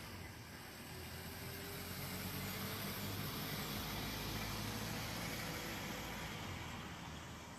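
A motor vehicle passing by, its engine and road noise growing louder to a peak midway and then fading away.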